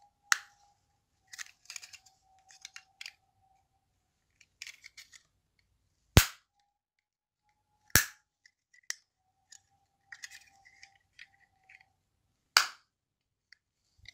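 Small screwdriver prying at the seam of a PTC relay's casing: light scraping and clicking, with four loud, sharp snaps as the case is forced open.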